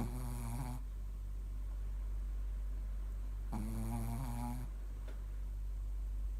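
Shih tzu snoring: two pitched snores, each about a second long, the second coming some three and a half seconds after the first.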